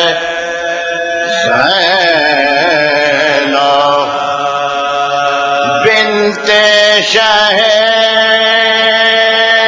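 Male voices chanting an Urdu devotional recitation without instruments, amplified through microphones. The chant holds long, steady notes broken by ornamented, wavering turns.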